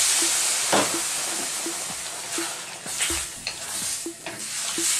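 Cold water hitting a very hot wok of frying sweet potatoes and onions: a loud hiss and sizzle that slowly dies down. In the second half, a wooden spatula scrapes and knocks as the mixture is stirred.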